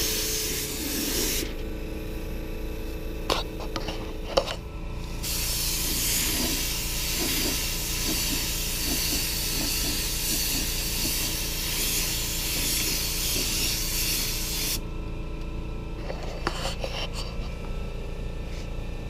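Gravity-feed paint spray gun hissing as it sprays paint onto a truck door: a short burst at the start, then a pause broken by a couple of clicks, then one long pass of about ten seconds that stops suddenly.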